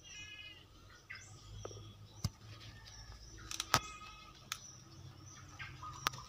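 Birds chirping, broken by several sharp clicks, the loudest about three and a half seconds in, over a faint low hum.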